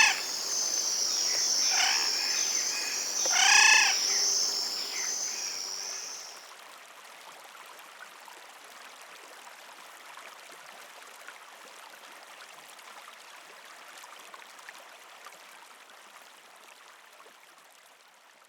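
Three loud, harsh bird calls in the first four seconds over a steady, pulsing high-pitched insect trill. The trill stops about six and a half seconds in, leaving only a faint hiss of forest ambience that fades away.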